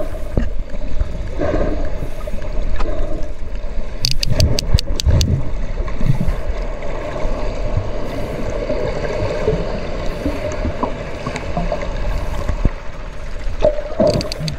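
Underwater sound beside socialising sperm whales: a steady wash of water noise and low rumble. About four seconds in comes a quick run of about seven sharp clicks, a sperm whale coda, with a few more clicks near the end.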